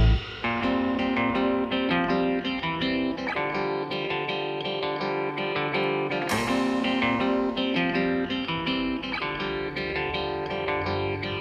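Music led by a plucked guitar, with notes picked one after another in a steady run.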